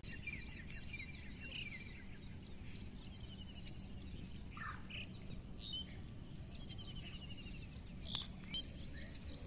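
Small birds chirping, with quick repeated trills, over a steady low rumble of background noise. One sharp click sounds near the end.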